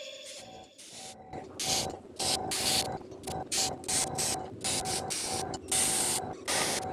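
Airbrush spraying paint in short hisses, about three a second, as the trigger is pressed and released to put small dots on the lettering. A faint steady hum runs underneath.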